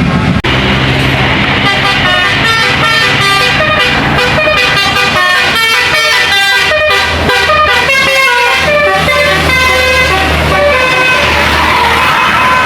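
Tour bus telolet horn, the multi-tone musical horn, playing a quick melody of short stepped notes over the low, steady running of the bus's engine.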